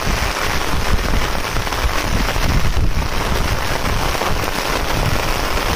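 Steady heavy rain falling, with wind rumbling on the microphone.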